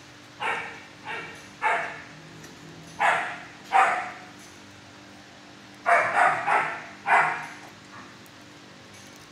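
A dog barking, nine barks in three bunches: three, then two, then four.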